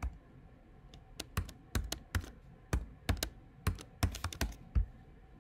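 Typing on a computer keyboard: a run of irregular key clicks, starting about a second in, as a password is entered at a terminal prompt.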